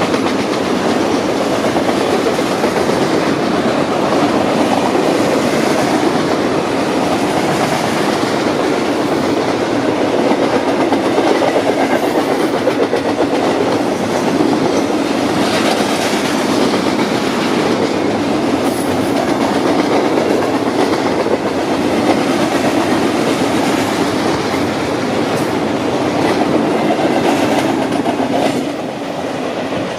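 Freight cars of a loaded garbage train rolling steadily past, with a continuous rumble of wheels on rail and clickety-clack over the rail joints. The sound drops slightly a little before the end.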